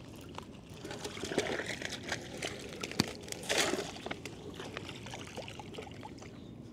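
Water splashing and trickling, with two louder splashes about one and a half and three and a half seconds in and scattered light clicks and knocks, as a hooked fish is brought out of the water.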